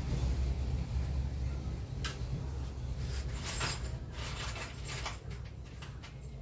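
Small metal parts, screws, being handled and sorted on a workbench, giving a string of clicks and rattles, the sharpest about two seconds in and a cluster a little later, over a low steady hum.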